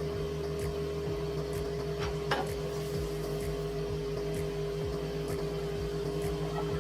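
A machine running steadily in a workshop: a constant hum with a steady mid-pitched tone and a light tick about once a second, with one sharper click about a third of the way in.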